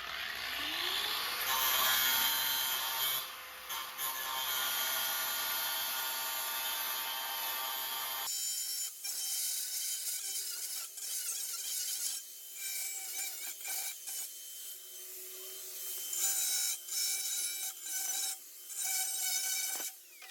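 Power tool, most likely an angle grinder with a cut-off wheel, spinning up and then cutting through the steel of an excavator bucket with a steady rasp. About eight seconds in the sound changes abruptly to thinner, intermittent grinding with short pauses.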